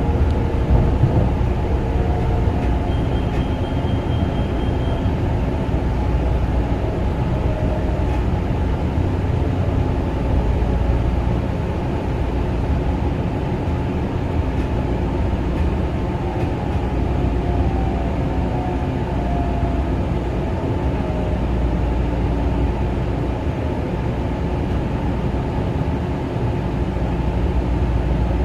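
Kawasaki M9 electric railcar running on the line: a steady rumble of wheels on rail, with faint motor whine tones that slide slowly in pitch.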